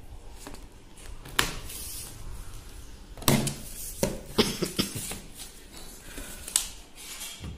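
Cardboard box being opened by hand: scissors and fingers work at the taped flaps, and stiff cardboard crackles and snaps as the flaps are pulled back, in a series of sharp irregular rustles and clicks.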